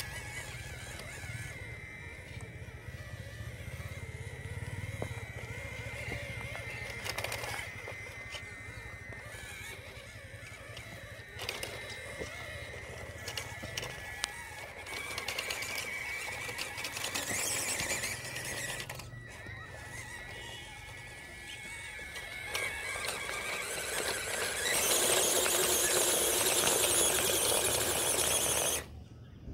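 Small RC truck's 55T electric motor and metal-geared drivetrain whining steadily as it crawls over rocks and loose dirt, with a thin high whine over a low hum. Near the end a louder rushing noise takes over for a few seconds and cuts off suddenly.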